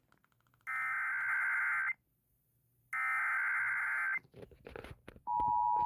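Emergency Alert System header: two bursts of warbling digital data tones, each a little over a second long and about a second apart, then a moment of broken noise, then the steady attention tone starting about five seconds in.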